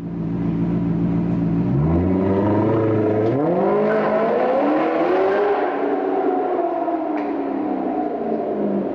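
Maserati GranTurismo's V8 pulling away under throttle inside an underground car park: the engine note climbs in two pulls with a brief dip between them, then sinks slowly as the car draws away.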